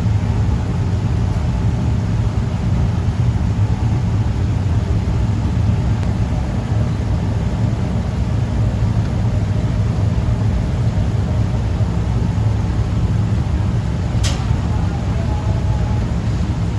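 Steady low rumble of kitchen equipment at a grill station, with one sharp click about fourteen seconds in.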